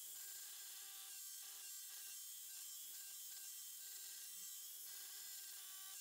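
Hammer drill with a smaller pilot bit boring into a very thick, hard masonry wall: a steady, faint grinding with a motor whine.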